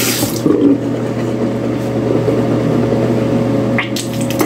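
Someone finishing brushing their teeth and rinsing at a bathroom sink, with irregular scrubbing and rinsing noises and a few short clicks near the end, over a steady low hum. A rushing hiss like a running tap cuts off just as it begins.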